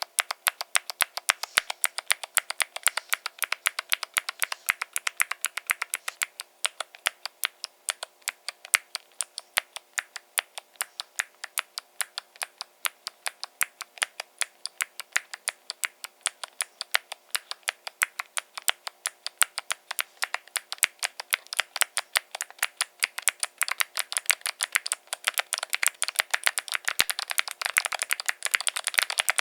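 Typing on a foam-filled Link65 custom mechanical keyboard with Gateron Melodic clicky switches: a steady run of sharp, crisp keystroke clicks, a few a second, speeding up into rapid typing near the end.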